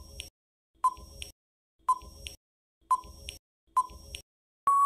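Quiz countdown timer sound effect: a short electronic beep about once a second, five times, then a long steady beep at the same pitch starting near the end as time runs out.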